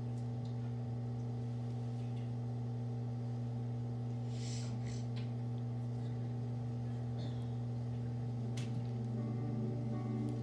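A steady low hum with a few faint overtones, with a brief hissy rustle about four and a half seconds in and a few soft clicks. Faint sustained musical tones begin to come in near the end.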